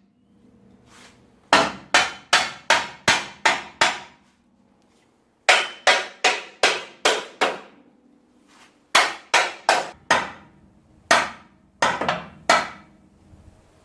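Hammer blows on a steel frame cross member, driving it into place in a truck frame: four runs of rapid strikes, about three a second, with short pauses between runs.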